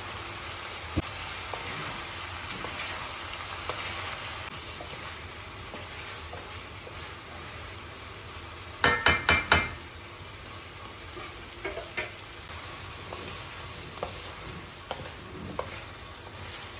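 Chicken pieces sizzling as they fry in a metal wok, stirred with a wooden spatula. About nine seconds in comes a quick run of four or five loud clacks of the spatula against the wok, with a few lighter knocks afterwards.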